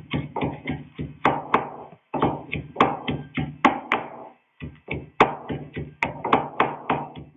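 Pestle pounding herbs in a mortar: rapid repeated thuds, about four a second, in three runs with two short pauses.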